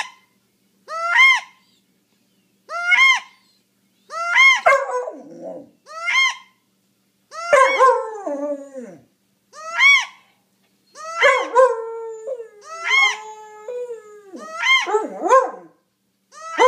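A wood duck call squealing over and over, a rising-then-falling note about every second and a half, while a Black Mouth Cur puppy howls along. The howling joins about four seconds in and grows longer and more wavering toward the end.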